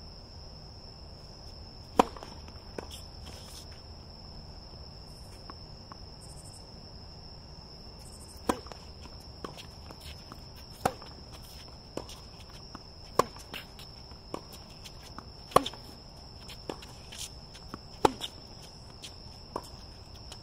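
Tennis ball struck by rackets in a baseline rally: a loud pop about two seconds in, then, from about eight seconds in, a regular series of sharp pops, the near player's hits loudest and about every two and a half seconds, with fainter hits and bounces from the far end in between. Under it runs a steady high-pitched chirring of night insects.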